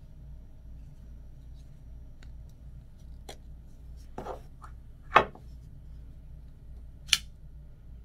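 Genixx Products folding pocket knife being worked by hand: a few small metallic clicks, then a loud snap about five seconds in and another sharp snap near the end as the blade snaps open.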